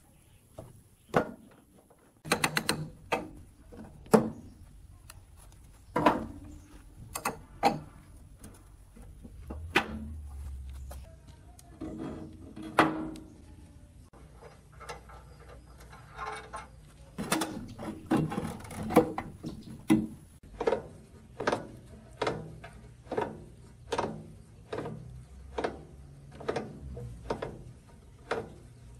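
Metal clicks and knocks from hands and tools working on the rusty cast-iron frame of a woodworking machine being taken apart. Irregular clanks at first, then a run of evenly spaced knocks, about one and a half a second, in the second half.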